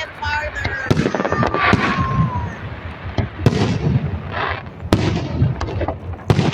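Aerial fireworks display: a string of sharp bangs from shells bursting, about four of them loud, with crackling in between.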